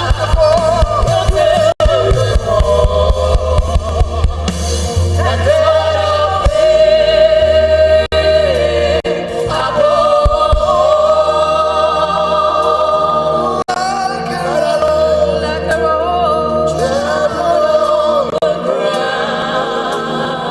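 Live gospel worship music: a choir of voices sings over bass and keyboard, the bass dropping out in the last couple of seconds.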